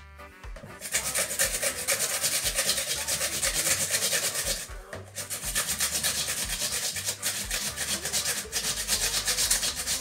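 Raw potatoes being grated on a flat stainless-steel hand grater into a plastic bowl: rapid, rhythmic strokes that start about a second in, stop briefly a little before halfway, then carry on.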